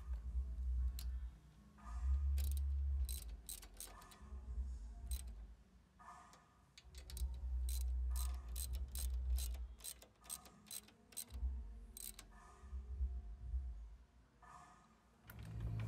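Ratchet wrench clicking in spurts as it turns a socket on an extension, tightening the bolt of an A/C line fitting at the condenser. Bursts of low rumble come and go underneath.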